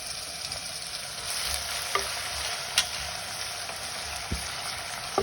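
Chopped onions sizzling in hot oil in a kadhai, frying steadily, with a few light knocks about two, three and four seconds in.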